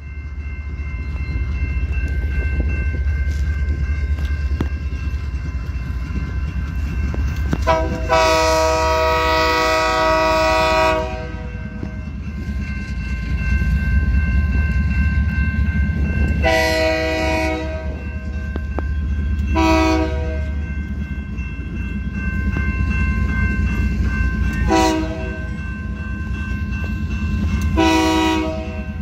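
Freight locomotive's Nathan K3LA air horn sounded by the crew: one long chord blast of about three seconds, then four short blasts spaced a few seconds apart, over a steady low rumble.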